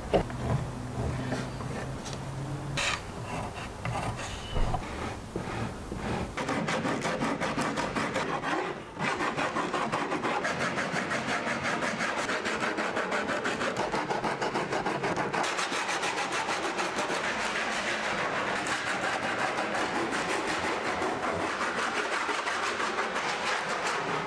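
Sandpaper rubbing by hand on pine table slats: a rasping scrape in fast, steady back-and-forth strokes that starts about six seconds in, after a few light knocks and scrapes on the wood.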